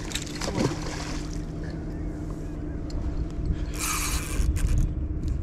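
Steady low outdoor rumble with a faint steady hum underneath, and a short burst of hissing noise about four seconds in.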